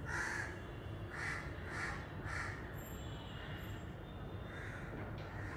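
Harsh crow-like cawing: four short calls in quick succession over the first two and a half seconds, then a fainter one near the end.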